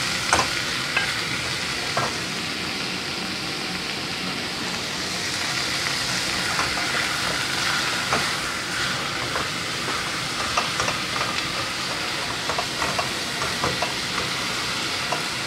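Minced meat frying with onion and garlic in a pot, a steady sizzle, stirred with a wooden spoon that knocks and scrapes against the pot now and then.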